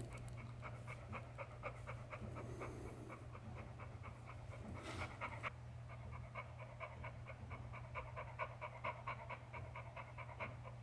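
Grey American bully (pit bull) panting quickly and steadily, about three to four breaths a second, stressed by a thunderstorm. A brief rustle comes about halfway.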